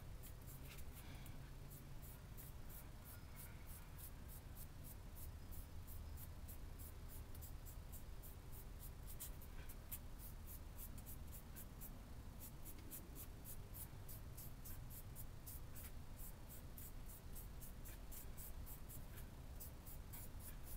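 Stiff paintbrush dry brushing a textured brick-wall diorama piece: a faint, quick run of light scratchy strokes, about four a second, with a brief pause midway, the brush nearly empty of paint.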